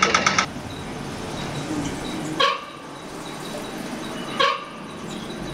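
Pedestrian crossing push-button signal giving its rapid walk ticking, about ten ticks a second, which stops about half a second in. After that, over a soft steady background, come two short animal-like calls about two seconds apart.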